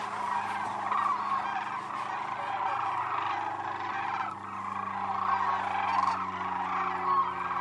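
A flock of sandhill cranes calling continuously, many calls overlapping into a dense chorus.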